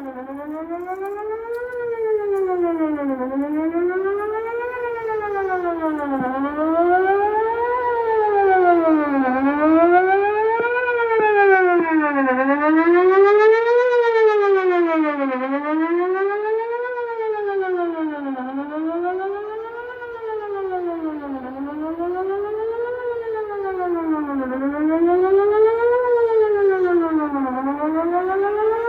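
Whelen WPS-4004 electronic outdoor warning siren sounding a wail on its scheduled test, the pitch rising and falling about every two seconds.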